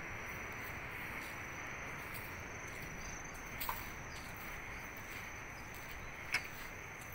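Insects trilling in one steady high tone over a low, even hiss of outdoor background noise, with two faint clicks in the second half.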